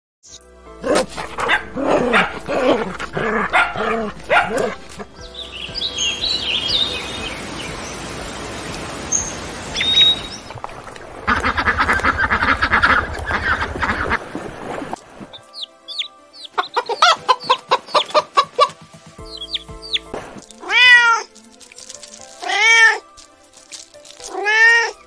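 A run of different domestic animal calls, ending with three drawn-out cat meows, each rising and falling in pitch.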